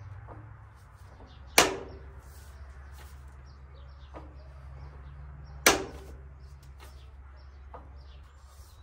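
Hand clutch lever of a 1954 Allis-Chalmers WD45 tractor worked by hand, giving two sharp clunks about four seconds apart as the newly connected hand clutch linkage is tried.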